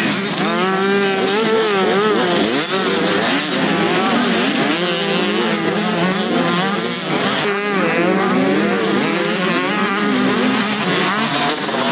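Several motocross bikes racing, their engines revving up and down over one another as they accelerate and shift.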